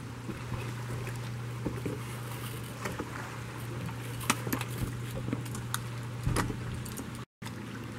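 Boat engine idling with a steady low hum, with scattered light metallic clinks from the climbing gear and rope. The sound drops out for a moment near the end.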